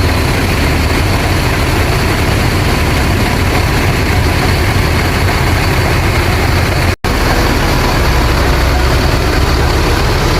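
Bus diesel engine running steadily with a deep, snoring exhaust note, the 'knalpot ngorok'. The sound breaks off for an instant about seven seconds in, then carries on.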